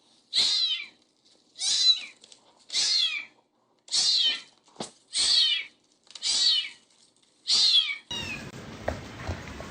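A kitten meowing over and over: seven high-pitched meows about once a second, each falling in pitch. Near the end the meowing stops and a steady background hiss with faint knocks takes over.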